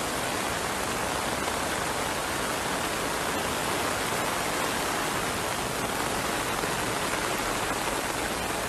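Heavy rain pouring steadily, mixed with the rush of fast-flowing floodwater.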